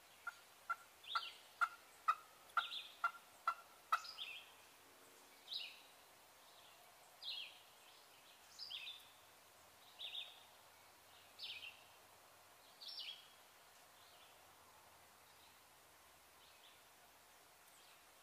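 Wild turkey yelping: a quick series of about nine sharp yelps over the first four seconds. A higher-pitched bird's descending note repeats about every one and a half seconds until about two-thirds of the way through.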